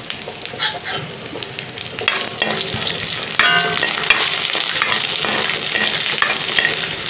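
Chopped cashews and other dry fruits sizzling in a little ghee in an iron kadai, stirred with a spatula that clicks and scrapes against the pan. The sizzling gets louder a few seconds in.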